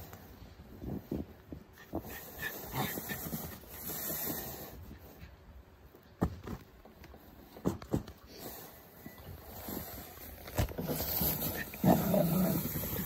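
Jack Russell terrier panting, with scattered short scuffs and knocks that come at irregular intervals and crowd together near the end.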